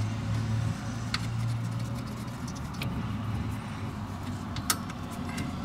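A low vehicle hum that fades away about a second in, then a few scattered light clicks and ticks of hand tools on the drum brake parts.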